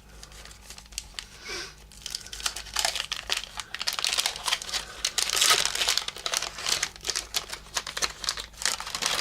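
Wax paper pack wrapper crinkling and rustling as it is handled, a dense crackle that builds after a couple of seconds and is loudest a little past halfway.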